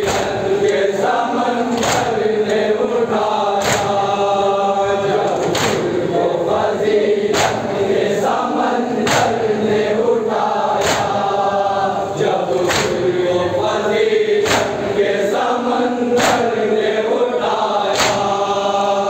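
A group of men chanting an Urdu noha (Muharram lament) in unison, amplified through microphones, with sharp chest-beating slaps (matam) landing in a steady beat about every two seconds.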